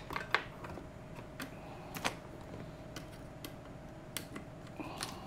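Scattered light clicks and taps, about seven at irregular intervals, from a USB cable and small parts being handled on the workbench, over a faint steady hum.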